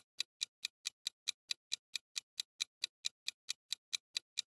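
Countdown-timer ticking sound effect: rapid, evenly spaced clock-like ticks, about four or five a second, that stop just before the end as the timer runs out.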